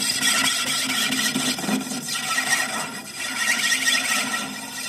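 Metal lathe turning an engine cylinder sleeve: the cutting tool scraping the spinning tube with a steady squeal that swells and fades.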